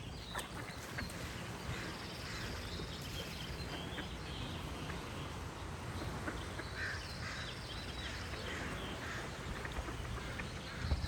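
Ducks quacking now and then among many songbirds chirping and singing, with a high trill heard twice, over a steady low background noise.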